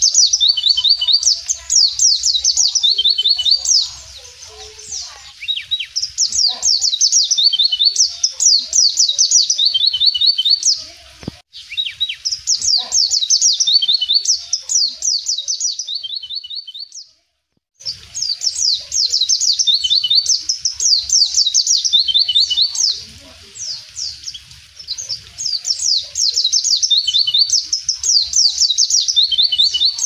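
White-eye (pleci) singing: five bouts of rapid, high twittering notes, each about four seconds long, with short pauses between them. The sound cuts out completely for a moment just past the middle.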